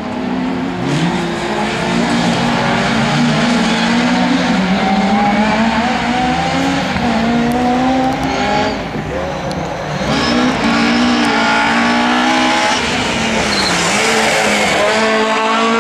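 Rallycross race car engines revving hard and changing gear, their pitch rising and falling and overlapping as several cars run round the circuit. Near the end a Volvo C30 rallycross car comes past close and gets louder.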